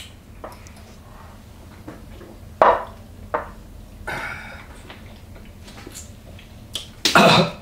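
A man downing a tequila shot and biting a lime, mostly quiet: two short knocks a little before halfway, and a brief loud vocal sound near the end.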